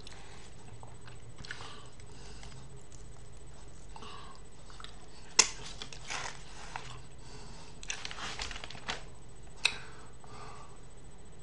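Soft handling and eating noises from picking apart a smoked mackerel: scattered rustles and smacks, with two sharp clicks about five and a half and nine and a half seconds in, over a steady hiss.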